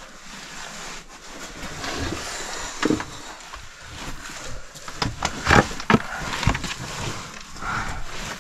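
A caver's oversuit, helmet and gloves scraping and knocking against rock while squeezing through a tight boulder squeeze, a steady rustle broken by irregular knocks, with a cluster of sharper ones about five to six seconds in.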